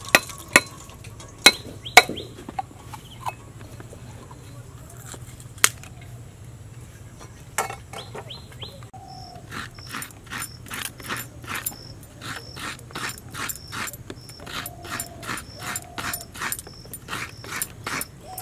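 A few sharp blows of a heavy knife cracking a coconut, then a coconut half grated by hand on the serrated scraper of a floor-mounted boti blade: rhythmic rasping strokes, about two a second, from about halfway through.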